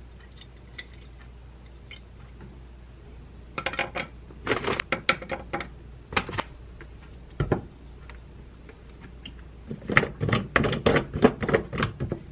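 Frozen blueberries clattering into a plastic blender jar in scattered clicks, then a quick dense run of plastic clicks and rattles near the end as the blade lid is fitted and screwed onto the jar.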